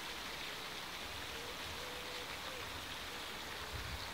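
Outdoor garden ambience: a steady, even hiss with faint short low notes repeating at one pitch. A low rumble swells about a second in and again near the end.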